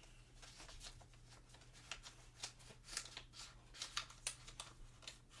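Faint, irregular light clicks and rustles of the iPad box's paper and cardboard inserts being handled and taken out, over a faint steady low hum.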